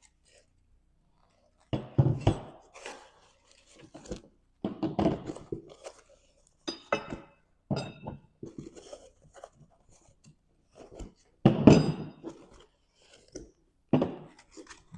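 Unpacking of a plow attachment's box: foam and packing material being handled, with irregular thunks and a few short metallic clinks as steel parts are moved and set down.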